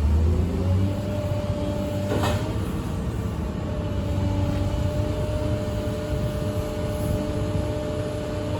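A 2011 Cat M318D mobile excavator running, its diesel engine giving a steady hum with pitched tones held level, and a short knock about two seconds in.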